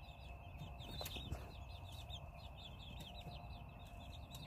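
Young chicks peeping faintly in quick, short falling notes, many a second, with a single sharp knock about a second in.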